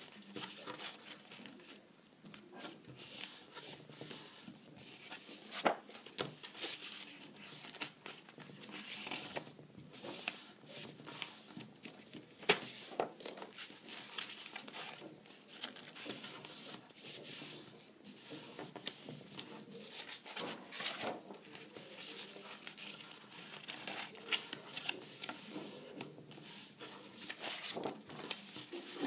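A sheet of cardboard being handled and folded by hand: irregular crinkling and rustling of the paper, with occasional sharp clicks as creases are pressed in.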